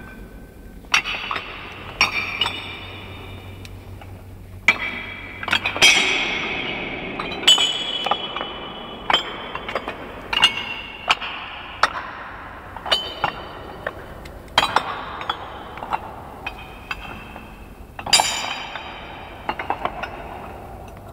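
Heavy metal face plates of the Shalechet installation clanking and ringing as they shift and knock against one another under footsteps: a string of loud metallic clunks, each with a ringing tone that dies away slowly and echoes in a bare concrete room.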